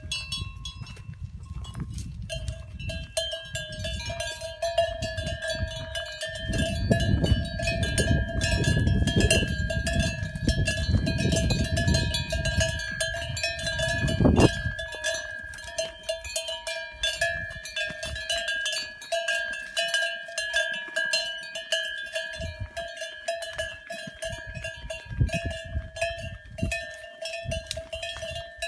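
Cattle bells clanking continuously and irregularly as the cattle walk, their metallic ring holding on steadily. A low rumble runs underneath through the middle stretch.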